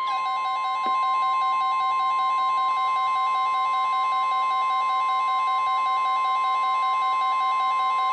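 NOAA Weather Radio 1050 Hz warning alarm tone: one long, steady, loud beep announcing a warning, here a flood warning.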